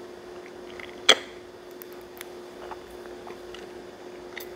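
LEGO minifigure parts being pressed together: one sharp plastic snap about a second in, with a few faint clicks of handling small pieces.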